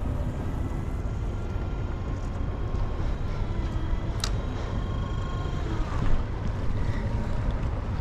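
Steady wind and water noise around a small boat, with a faint steady whine from an electric trolling motor holding the boat against the current. A single sharp click about four seconds in.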